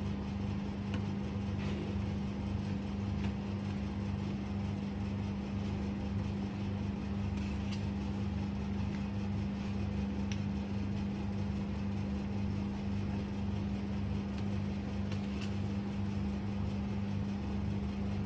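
Rolled ice cream machine's refrigeration compressor running with a steady electrical hum, with a few faint light clicks.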